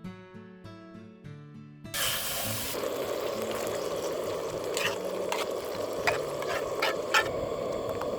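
Plucked-string background music that cuts off about two seconds in. It gives way to a steady rushing noise with a handful of short clicks.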